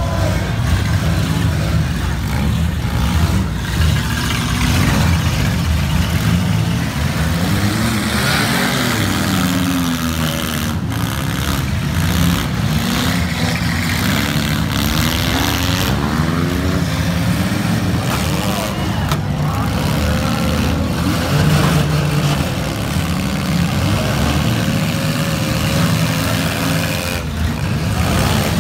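Several front-wheel-drive demolition derby cars running at once, their engines revving up and down as they drive and ram one another. A few sharp crashes of cars hitting each other stand out, about eleven, nineteen and twenty-seven seconds in.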